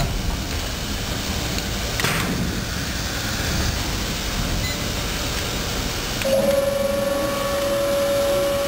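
JACKO J24-T polarizer laminator running, a steady mechanical hiss and rumble with a sharp click about two seconds in. About six seconds in, a steady high-pitched tone sets in and holds.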